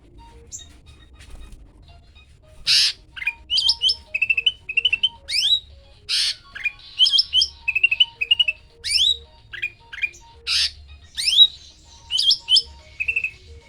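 Cucak ranting songbird singing a fast, varied song of sweeping upward chirps and short trills, starting a couple of seconds in. It is broken three times by a loud, harsh rasping note.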